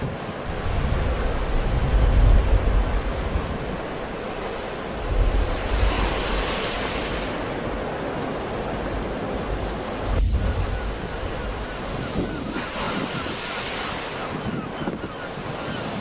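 Sea waves breaking and washing continuously, swelling into a louder hiss twice. Wind buffets the microphone in low rumbling gusts, near the start, around the middle and again about two-thirds of the way through.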